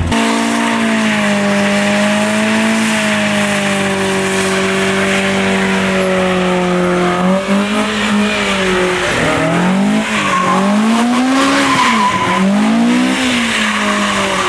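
Car engine held at high revs while the rear tyres spin and squeal in a drift. About halfway through, the revs start to rise and fall several times as the throttle is worked.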